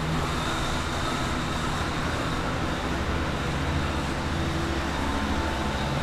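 Steady hum and air rush of several water-damage drying fans (air movers) running, set out to dry a flooded floor.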